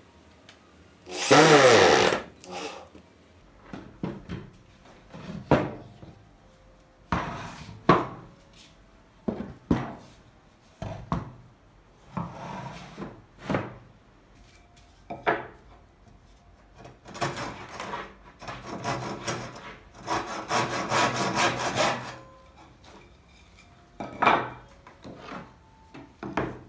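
Corded electric drill running briefly in a wooden board and winding down, its pitch falling. Then a string of short knocks and scrapes of wooden pieces being handled and fitted together, with a longer stretch of rapid rasping strokes about two-thirds of the way through.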